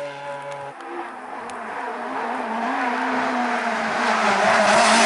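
A rally car's engine fading as it drives off, cut off abruptly under a second in; then another rally car approaching at steady high revs, growing steadily louder.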